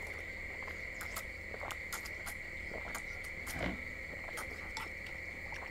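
Crickets trilling steadily in one continuous high-pitched tone, with scattered light clicks of chopsticks and glasses from people eating at the table.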